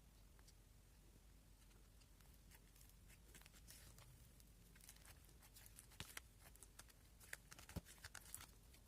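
Slime being worked by hand: faint sticky clicks and crackling pops, growing busier partway through with a few louder pops near the end.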